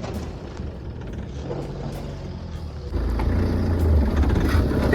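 Tata Safari Storme's diesel engine running while the transfer case is shifted from 4-high into 4-low. About three seconds in, a much louder low rumble comes in.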